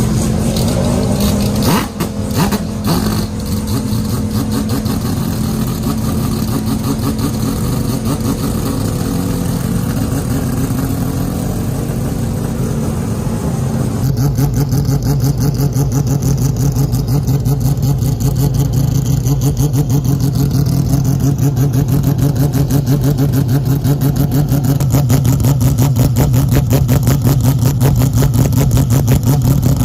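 Mazda 767B's four-rotor rotary racing engine running loud and steady at a raised idle, with a few sharp cracks about two seconds in. About halfway through the note drops lower, gets louder and turns into a lumpy, pulsing idle.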